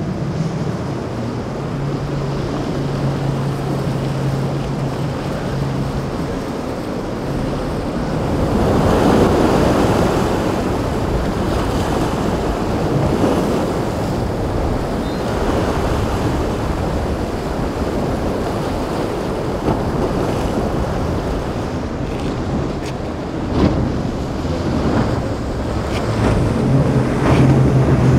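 Waves washing and breaking in a rough inlet, with wind buffeting the microphone and the steady hum of a boat's motors. The motor hum is plain at the start and again near the end, and a louder surge of water comes about a third of the way in.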